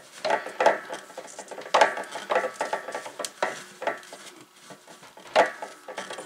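Irregular clicks, knocks and scrapes of a PVC pipe fitting being fed through the hole in a well pressure tank's plastic base and worked onto the tank's threaded connection.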